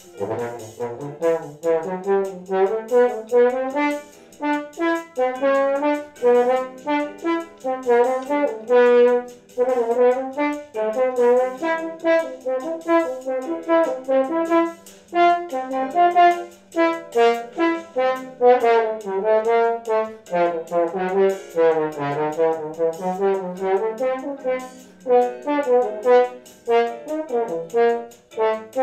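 Bass trombone playing a busy solo line of short, quickly changing notes, with brief breaks between phrases, over a bossa nova backing track.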